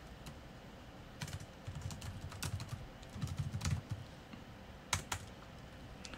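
Typing on a computer keyboard: scattered keystrokes, a busier run in the middle and two sharper clicks about five seconds in.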